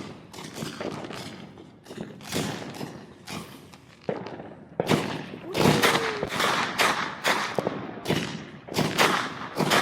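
Consumer fireworks going off: scattered bangs and crackles, then a rapid string of louder bangs from about five seconds in.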